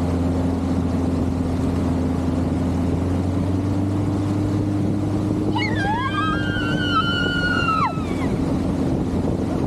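Motorboat engine running steadily under way, with rushing water and wind noise; the drone rises slightly in pitch midway. About halfway through, a long high-pitched yell rises, holds for about two seconds and falls off.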